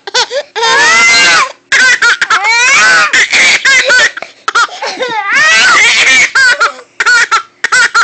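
Baby laughing: two long, high squealing laughs, one near the start and one about two-thirds in, between runs of quick short chuckles.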